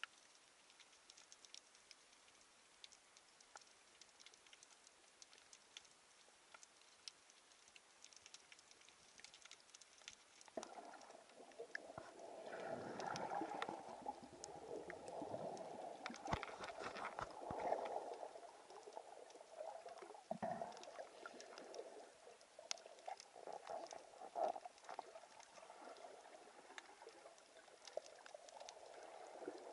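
Underwater sound picked up by an action camera: faint scattered crackling clicks, then from about ten seconds in a louder rushing, bubbling water noise that swells and fades, with sharp clicks over it.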